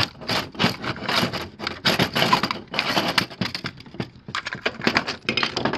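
Screwdriver prying a plastic pod off a Hayward pool cleaner: a busy, irregular string of plastic clicks, knocks and scrapes.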